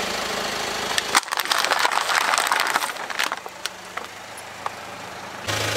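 A car engine idling, then about a second in, thin plastic cups cracking and crunching under a car tyre, with the gel water beads inside spilling and scattering in a quick run of sharp clicks that thins out over a couple of seconds. An engine running starts again abruptly just before the end.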